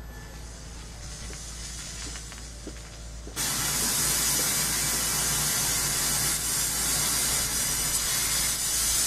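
A steady hiss like static or rushing air, faint and swelling at first, then jumping suddenly to a loud, even rush about three seconds in and holding steady.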